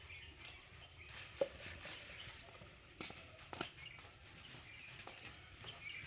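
Quiet outdoor ambience with faint bird chirps and a few sharp knocks, the loudest about one and a half seconds in.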